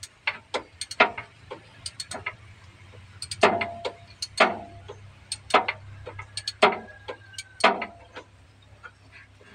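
Hand tool working a starter motor's long mounting bolt: irregular sharp metallic clicks and clinks, the loudest coming about once a second through the middle of the stretch, some with a brief metallic ring.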